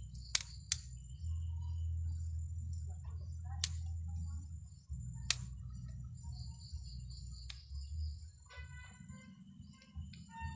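Small pruning scissors snipping bonsai twigs: five sharp snips at uneven spacing, two close together near the start, then one every couple of seconds, over a low steady rumble.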